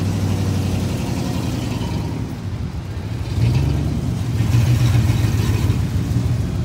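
A car engine running with a low, steady rumble that grows louder about halfway through.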